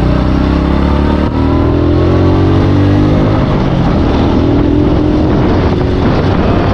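Honda motor scooter's engine running at a standstill, then revving up as it pulls away, its pitch rising a little over a second in and climbing again near the middle.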